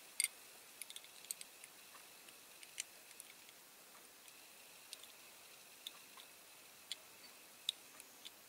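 Small clicks and taps of a diecast model tractor's parts being handled and pressed together by hand, a sharp pair of clicks at the start, then faint irregular ticks.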